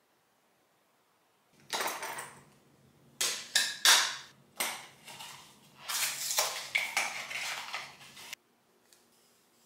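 A small false-eyelash box and its plastic packaging being handled and opened by hand: a run of clicks, clatter and crinkling starting about two seconds in, over a faint low hum. It stops suddenly about a second before the end.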